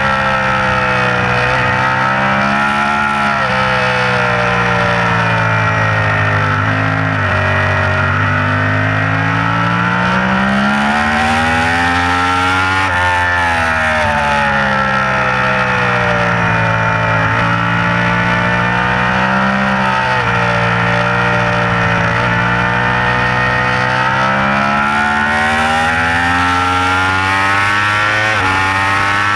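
Yamaha YZF-R1's crossplane inline-four heard onboard at race pace: the engine note climbs and falls with throttle and braking through the corners, and drops sharply in pitch at an upshift near the end, over steady wind rush.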